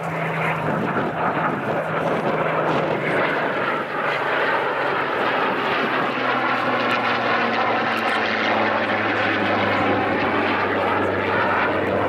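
A Supermarine Spitfire and a Eurofighter Typhoon flying past together. The Spitfire's piston engine drone mixes with the Typhoon's jet rush in a steady, loud aircraft sound, with a slight drop in pitch about halfway through as they pass.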